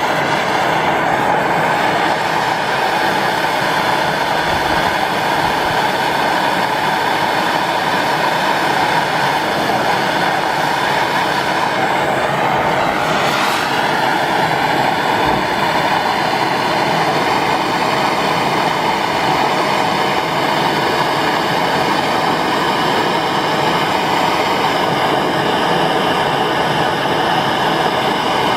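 MAP gas torch flame burning with a steady, loud hiss while it heats a swaged copper pipe joint for brazing. The tone shifts briefly about thirteen seconds in.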